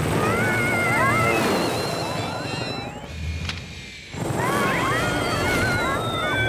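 Cartoon ants squealing and chattering in high, squeaky, wavering voices over the steady whir of a toy quadcopter drone. About three and a half seconds in there is a brief quieter moment with a single click, then the squealing resumes, with a thin falling whistle near the end.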